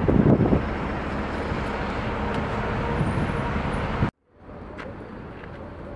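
City buses and street traffic driving past, a loud steady rush that swells in the first half second. About four seconds in it cuts off abruptly and gives way to much quieter street background.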